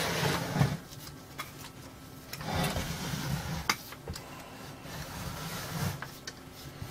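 Handling noise as a valve television set and its cables are moved about on a wooden workbench: irregular rubbing and scraping, with a few sharp clicks.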